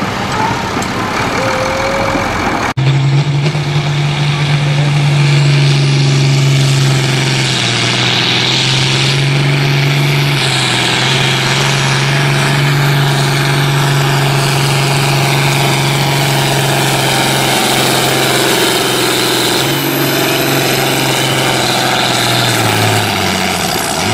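A few seconds of a diesel farm tractor running at low revs, then an abrupt switch to an International Harvester diesel tractor at full throttle under heavy load, pulling a weight sled. The engine holds a steady high pitch for about twenty seconds, dips briefly near the end, then picks back up.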